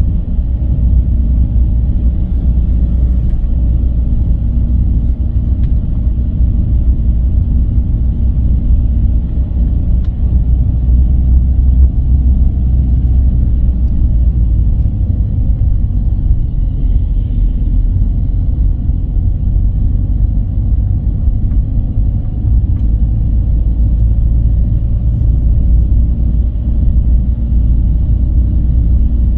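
Car driving at a steady speed: a steady, low rumble of road and running noise.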